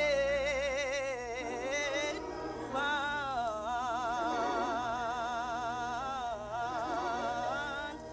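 A woman's solo gospel voice singing long, high held notes with a wide vibrato, in two phrases with a short break about two seconds in, from a vintage church-choir LP.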